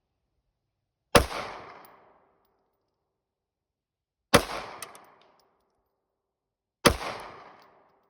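Three 9mm shots from a Sig Sauer P365 pistol, fired slowly and evenly about three seconds apart, each with a short echoing tail. They are deliberate, aimed shots from a rest to put a group on the target while sighting in the optic.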